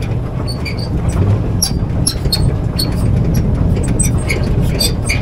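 Off-road vehicle driving over a rough dirt track: a steady low engine and road rumble with wind noise, and many small rattles and ticks throughout.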